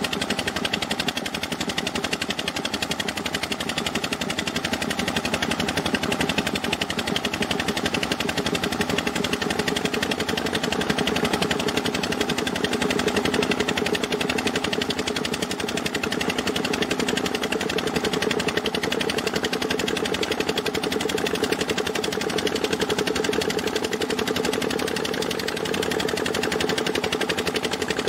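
Engine running steadily with a fast, even chugging beat, its pitch creeping slightly upward, over water splashing and pouring from a sand-slurry pipe onto the dump truck's bed.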